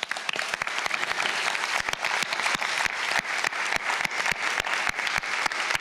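Audience applauding, building up quickly in the first half second and then holding steady.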